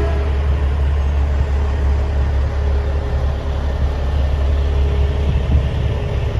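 Semi-truck's diesel engine running with a steady low rumble as the truck rolls slowly past.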